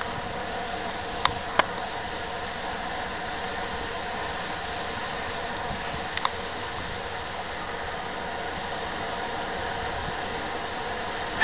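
Steady hiss of escaping steam from a Bulleid Rebuilt Battle of Britain class steam locomotive moving slowly, with no exhaust beats, broken by a few sharp clicks.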